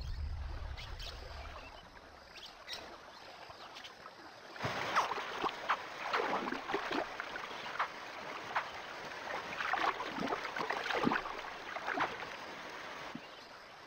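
Crocodile moving in shallow water at a muddy river edge: irregular splashing and sloshing of water, starting about four and a half seconds in.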